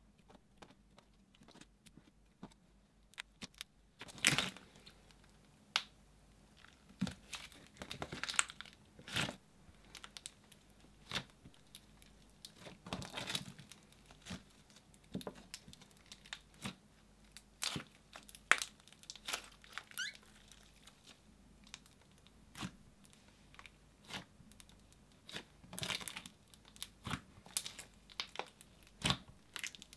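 Hands squishing and kneading soft slime, making sticky pops, clicks and crackles at irregular intervals, starting about four seconds in.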